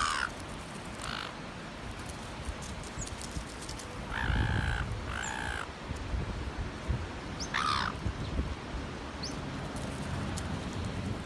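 Gulls calling with harsh, squawking cries: a pair of calls about four seconds in and a single falling call near the eight-second mark, over a steady low background noise.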